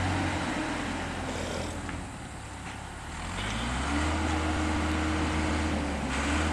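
Diesel engine of a tracked auger drilling rig running. It eases off and quietens about two seconds in, then revs back up to a steady higher pitch around four seconds in.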